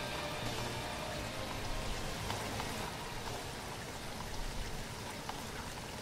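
Steady rain falling, an even hiss with scattered drops pattering.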